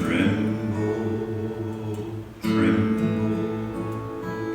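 Slow hymn music: held chords struck twice, about two and a half seconds apart, with a voice singing the drawn-out word "tremble" near the end.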